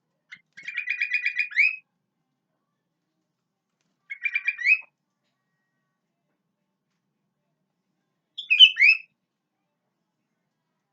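Sooty-headed bulbul (kutilang) singing three short phrases a few seconds apart. The first is a quick run of repeated notes ending on a rising note, the second a shorter run of the same kind, and the third a different, quicker phrase.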